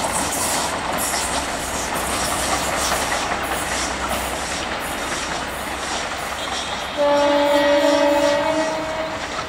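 WDS-6 diesel shunting locomotive running light, its wheels clicking over the rail joints above the engine noise. About seven seconds in, a locomotive horn sounds one steady blast of about two seconds.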